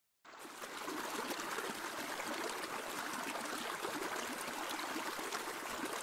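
Water of a small stream running and trickling in a steady babble, fading in over the first second.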